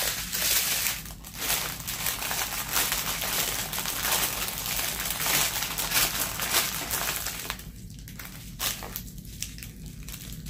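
Clear plastic zip bags of diamond painting drills crinkling and rustling as they are handled and shaken. The crinkling is dense for about the first seven seconds, then thins to a few quieter crinkles and clicks.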